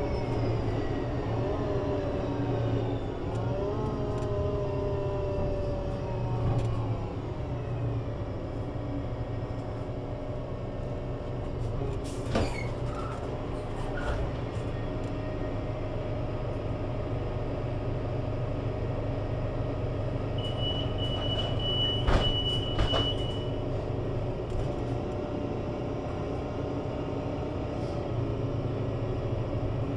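Solaris Urbino 18 IV articulated bus with a 240 kW DAF diesel and Voith Diwa 6 automatic gearbox. A falling whine from the drivetrain as it slows over the first few seconds, then the engine idles steadily. A few sharp clicks come around the middle and again a little past twenty seconds, with a steady high beep lasting about three seconds.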